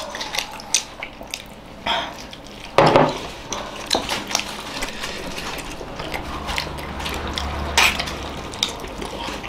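People eating steamed momos by hand: scattered small clicks and smacks of chewing, with a few louder sharp sounds about two and three seconds in and again near the end.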